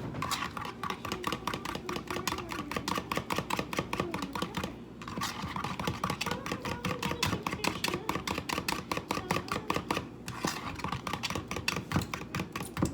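A utensil rapidly whisking sauce in a bowl: quick, steady clicking against the bowl at about seven strokes a second, with two short pauses.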